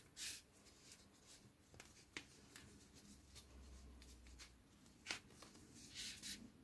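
Near silence with faint scratchy rustles of hands handling a crocheted cotton piece and drawing yarn through it with a needle, the longest rustle about six seconds in as the yarn is pulled through.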